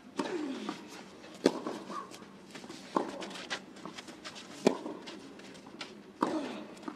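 Tennis rally on clay: racquets striking the ball five times, about one shot every second and a half, alternating between the two players. The same player grunts briefly on two of his shots.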